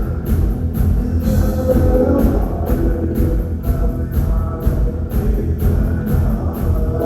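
Rock band playing at a steady tempo: drum kit with cymbal and drum hits about twice a second over a heavy low end, with guitar.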